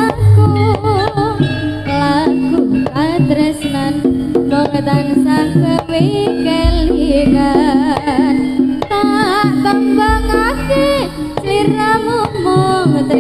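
Live jaranan music from a Javanese gamelan ensemble: a wavering, bending melody over a steady held tone, with deep booming strokes a few seconds apart.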